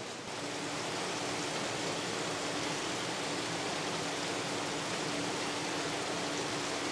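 Steady rushing hiss of aquarium water flow and air-stone bubbling. A steady low hum joins about half a second in.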